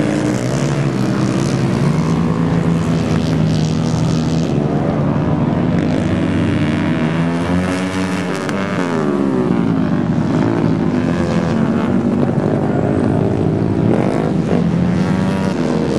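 Dirt-track racing motorcycles running hard around the oval, their engine notes overlapping and rising and falling as the bikes go through the turns.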